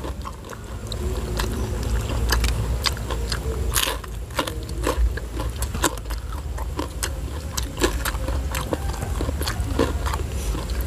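Close-up eating sounds of two people chewing and smacking their lips over rice, vegetables and batter-fried eggplant eaten by hand: a quick, uneven run of short wet clicks.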